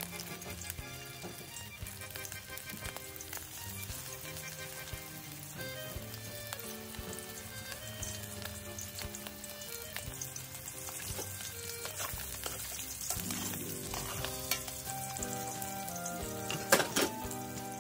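Pieces of sturgeon frying in hot oil in a wide metal pan, a steady sizzle. Near the end, metal tongs clack sharply against the pan a few times.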